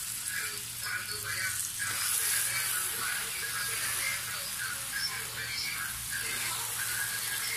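Water spinach sizzling and crackling in hot oil in a wok as handfuls of fresh leaves are dropped in and stir-fried.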